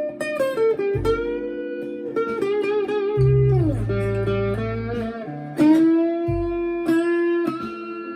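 Harley Benton ST-Acoustic guitar played through a Behringer Vintage Overdrive pedal and a Marshall MG15CFX amp, with a bit of distortion. It plays a single-note lead line of sustained notes, several of them bent so that the pitch slides up or down.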